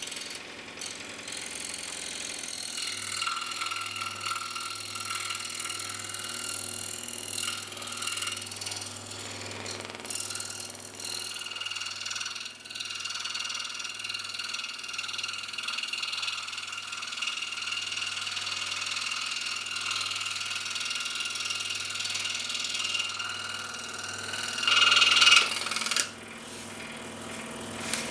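Scroll saw running and cutting through a stiff laminated sheet of cotton paper bonded with JB Weld: a steady mechanical buzz that grows louder for a moment near the end, then drops to a quieter run.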